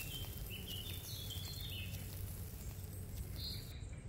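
A bird chirping in short high notes through the first two seconds and once more near the end, over a steady low background rumble.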